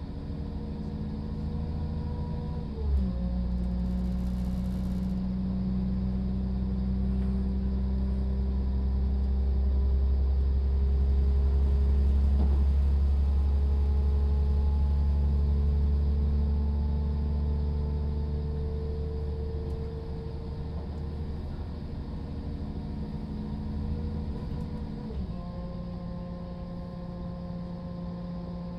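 Class 172 Turbostar diesel multiple unit heard from inside the train, its underfloor diesel engine running steadily under way. About three seconds in the engine note changes suddenly with a short thump. The running grows louder, then eases off, and the engine note steps up again near the end.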